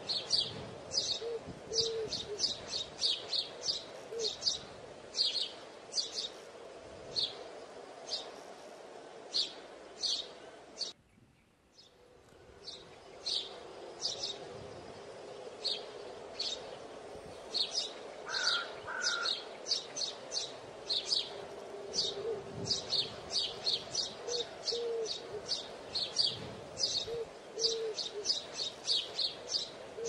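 Birds chirping busily, short high chirps coming several times a second, with a few short low notes now and then. The sound cuts out for about a second near the middle.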